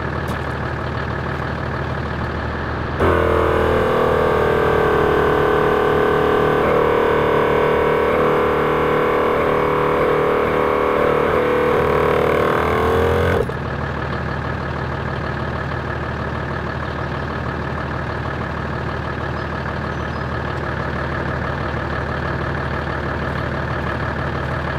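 Supacentre Thumper Max portable 12 V air compressor running steadily while inflating a 4WD's tyres, with the vehicle's engine idling. About three seconds in, a louder sound with several held tones takes over for about ten seconds, then the steady running returns.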